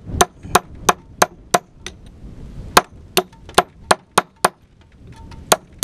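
Club hammer (1 kg) striking rock in quick runs of about three blows a second, chipping at the rock to free a buried stone. There are about a dozen sharp strikes, with short pauses about two and about four and a half seconds in.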